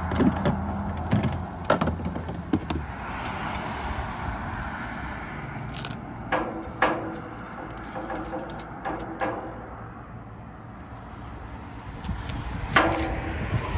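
Metal clanking: tools rattling in a trailer toolbox, then a crane's steel hook and shackle knocking together, several short knocks with a brief metallic ring, the loudest near the end. Road traffic passes underneath.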